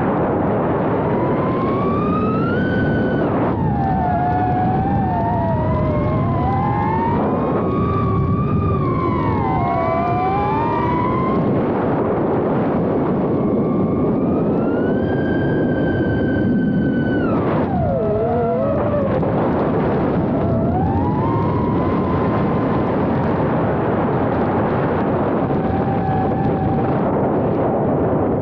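Small FPV quadcopter's 1303 brushless motors and propellers whining over a steady rush of prop wash and wind. The whine rises and falls with the throttle through the acro moves, is held high for a few seconds past the middle, then drops sharply.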